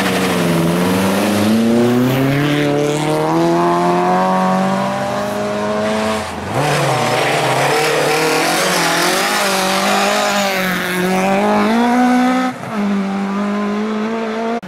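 Ford Escort Mk2 rally car's engine revving hard as it turns through a tight junction and accelerates away. The pitch climbs steadily, then drops sharply about six seconds in and again near the end, before climbing again.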